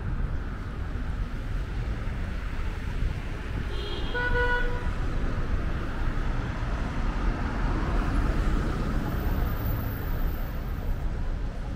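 Road traffic running along a street, with a car passing around eight seconds in; about four seconds in, a vehicle horn gives one short toot lasting about a second.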